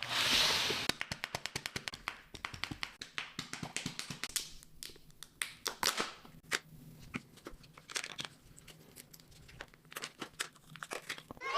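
A Kinder Joy egg's foil wrapper being torn open, a rushing tear in the first second, then crinkling with a long run of small sharp clicks as the wrapper is handled.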